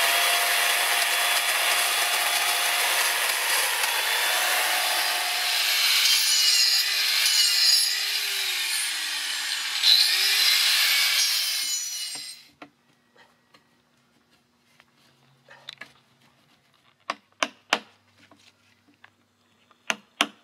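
Electric angle grinder carving into a large dry tree trunk: a loud, steady grinding with a motor whine that wavers in pitch as the disc bites into the wood. It cuts off about twelve seconds in. After that there are only scattered sharp taps on the wood.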